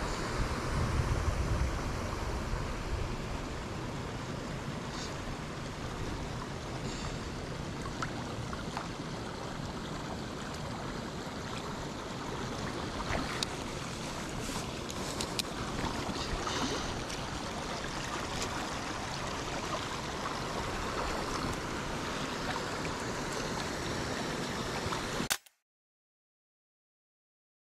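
Stream water running steadily, with a few light clicks in the middle. The sound cuts off suddenly near the end.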